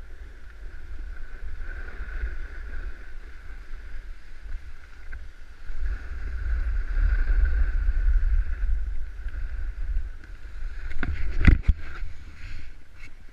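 Snowboard scraping and sliding over snow, with a steady hiss and a heavy wind rumble on the body-worn microphone; about eleven seconds in comes a quick cluster of sharp knocks and clatters.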